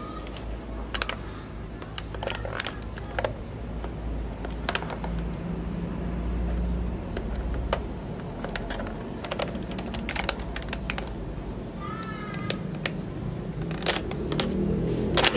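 Irregular, sharp clicks and knocks from handling a Classic Army P90 airsoft electric gun (AEG) as a hand works its plastic top-mounted magazine, over a low steady rumble.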